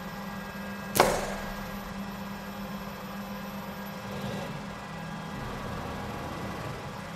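Steady machine hum, with one short, sharp hiss of air about a second in that dies away within half a second, typical of the exhaust of the Schunk pneumatic three-finger gripper as it actuates; a fainter, softer puff follows around four seconds.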